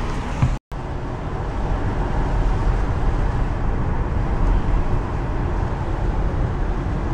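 Steady road and engine noise inside a moving car, its tyres running on a wet road. The sound cuts out completely for a moment about half a second in.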